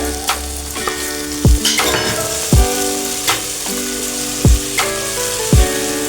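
Food sizzling as it fries in a pan, under background music with sustained notes and a deep drum beat.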